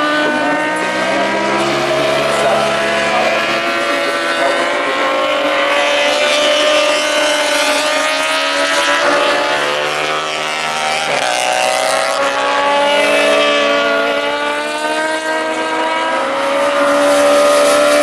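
Several classic superbike racing motorcycles running hard on the circuit, their engine notes overlapping and rising and falling in pitch as they corner and pass.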